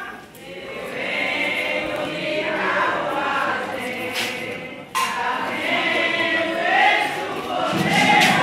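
A group of voices singing a devotional chant together, a ponto for Pombagira, with a sudden break and restart about five seconds in.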